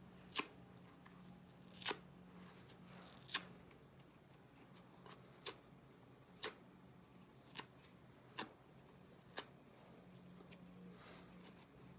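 Small foam sponge being torn and pinched apart by hand: a string of short, sharp crackles and ticks, some with a brief rasp of tearing foam, spaced irregularly about a second apart.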